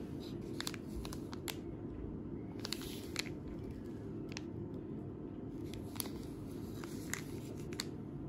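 Steady low room hum with scattered light clicks and taps, heard in a small room.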